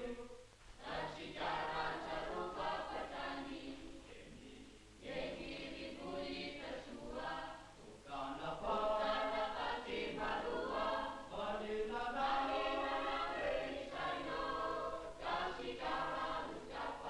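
A choir singing, in phrases with brief pauses between them.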